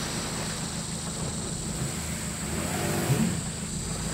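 Lifted 2001 Honda CR-V's 2.0-litre four-cylinder engine running under load as it wades through a muddy creek crossing, with water sloshing around the wheels. There is a brief louder rise about three seconds in.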